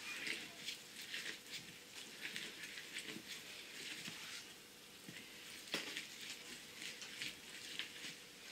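Lemon half being squeezed and twisted on a plastic hand juicer, giving faint, irregular wet rubbing strokes, a few a second, with one sharper click about halfway through.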